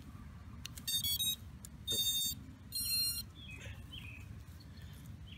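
Three short, high-pitched electronic beeps about a second apart as the quadcopter's battery is connected: the power-up tones of its BLHeli brushless speed controllers (Turnigy MultiStar 40A), sounded through the motors.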